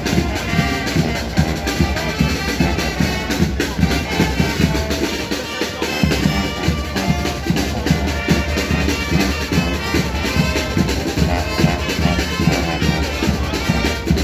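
Music with brass and drums playing a steady beat.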